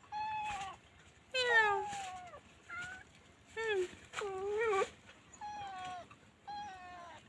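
Newborn kittens meowing: about seven short, high-pitched mews in a row, most falling in pitch.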